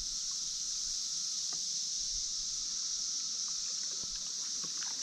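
Steady high-pitched hiss of outdoor creek ambience, with a few faint taps and knocks.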